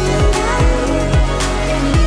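Background electronic music with a steady beat and deep bass notes that slide down in pitch.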